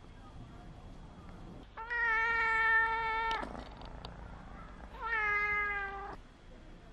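A kitten meowing twice: a long, drawn-out meow of about a second and a half, then a shorter one that falls slightly in pitch at the end.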